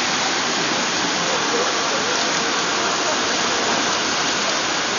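Steady hiss of rain falling, even and unbroken, with faint voices mixed in.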